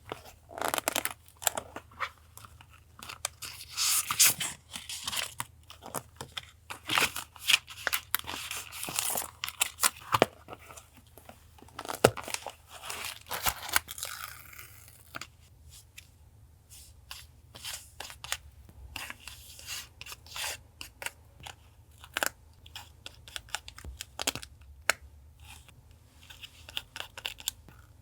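Paper being handled for a journal collage: rustling, tearing and crinkling with many short crackles and taps, busiest in the first half and sparser after about fifteen seconds.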